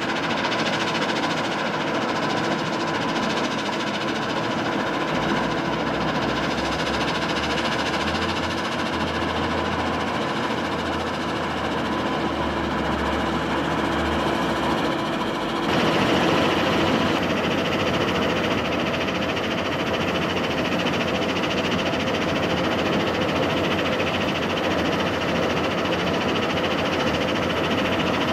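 Mobile stone crushing and screening plant running: a steady, dense machinery drone of engines, conveyors and the vibrating screen. The sound changes abruptly about halfway through.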